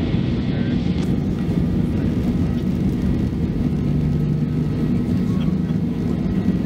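Boeing 737-800's CFM56-7B jet engines and wheel rumble during the takeoff roll, heard from inside the cabin: a loud, steady low roar with a hum underneath.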